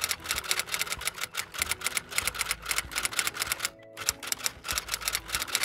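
Typewriter typing sound effect: rapid, uneven key clacks with a short pause about four seconds in.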